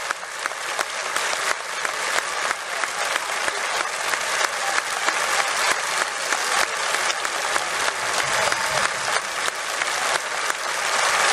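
Large crowd of football supporters in a stadium stand applauding: dense, continuous clapping that grows gradually louder toward the end.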